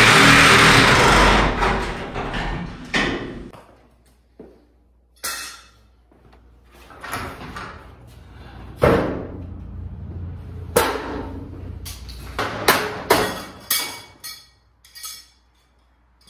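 A power tool runs loudly for about three seconds on the hinge fasteners at the top of a sectional garage door. It is followed by a series of separate metal knocks and clanks as the door's steel panels are lifted and handled.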